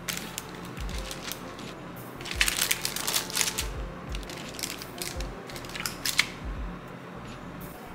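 Metal squeeze-handle cookie scoop scraping dough from a stainless steel bowl and clicking as it releases dough onto crinkling wax paper, in scattered clicks and scrapes, busiest a few seconds in, over background music.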